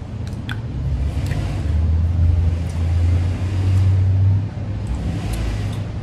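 A low rumble that swells about a second and a half in and drops off sharply a few seconds later, over a steady low hum, with a few faint clicks.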